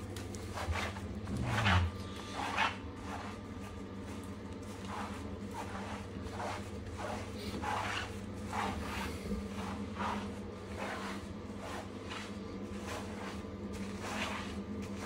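Rubber bath brush scrubbing a wet golden retriever's coat in short, repeated strokes, about two a second, over a steady low hum.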